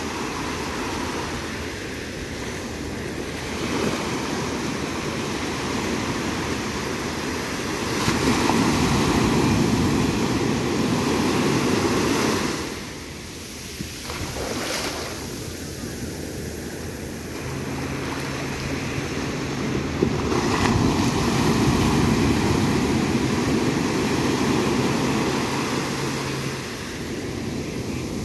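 Sea surf breaking and washing up over the sand in slow surges, loudest about a third of the way in and again in the last third, with a short lull between.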